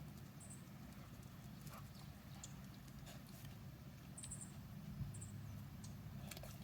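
Faint, irregular taps and clicks from a hairy woodpecker pecking and moving about, with a few short, very high squeaky chirps and a steady low hum underneath.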